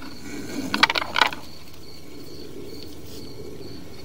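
Crickets chirping, a steady high trill, over a low steady hum. About a second in, a short run of sharp clicks and rattles stands out as the loudest sound.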